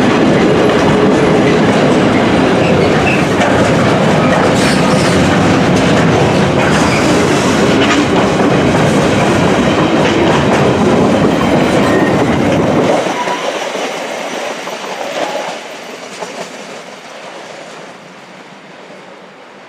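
Container freight train of flat wagons passing close by, its wheel and wagon noise loud and steady; about 13 seconds in the noise drops sharply as the last wagons go by, then fades as the train draws away.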